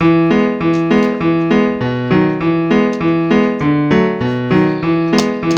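Background music: a bright keyboard tune of short repeated chords, about three a second, in a bouncy steady rhythm.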